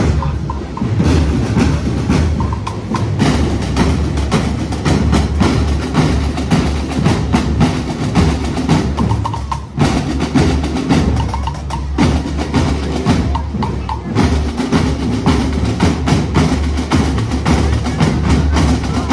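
Scout marching band's snare drums and bass drum playing a steady, fast marching beat, with a short break about ten seconds in.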